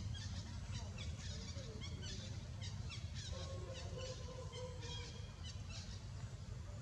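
Outdoor ambience: a steady low rumble with many short, high chirps scattered throughout. About three seconds in comes a drawn-out pitched call lasting about a second and a half.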